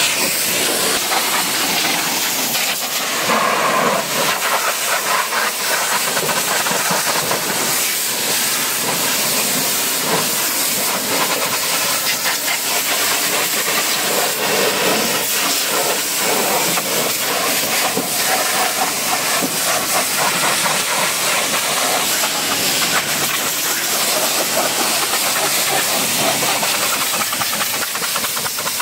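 Pressure washer's high-pressure water jet spraying onto a car's wheel arch and door panels: a steady, loud hiss of the jet striking the bodywork.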